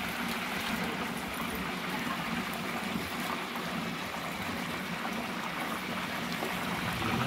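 Pork pieces frying in a large stainless-steel pot of hot lard (manteca) for carnitas: a steady sizzling and bubbling of the oil.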